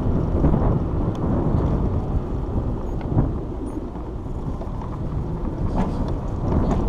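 Street traffic: a steady low rumble of passing vehicles, with a few faint short clicks.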